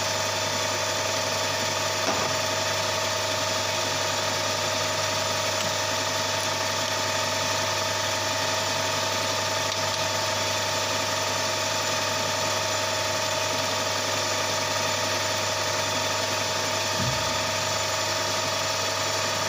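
Emco Maximat metal lathe running steadily with no load: a constant motor hum and gear-train whine from the spinning spindle and chuck.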